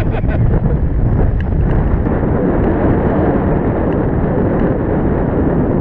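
Wind buffeting the camera's microphone: a loud, steady rumble with no break.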